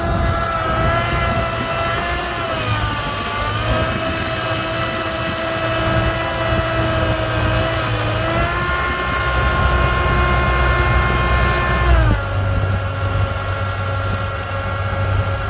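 Excavator running: a low engine rumble under a whine that holds steady, dips and recovers, rises, then drops to a lower pitch near the end as the machine's load or speed changes.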